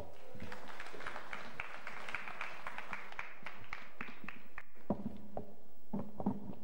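Audience applauding, a dense patter of claps that dies away after about four and a half seconds, followed by a few scattered knocks and bumps.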